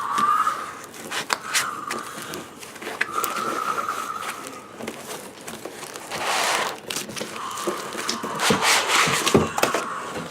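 Cardboard laptop box and its packing being handled and pulled open: crinkling, scraping and short clicks, with a thin steady tone that comes and goes several times.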